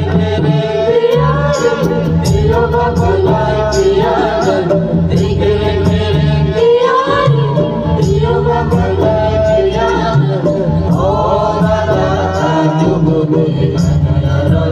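Music: a voice singing a melody over a heavy bass line and a steady drum beat.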